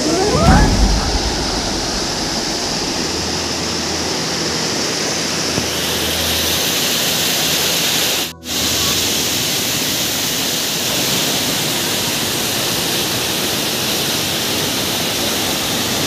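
Mountain stream rushing over rocks as white water, a steady hiss of falling water. A brief low thump comes just after the start, and the sound cuts out for an instant about halfway through before going on.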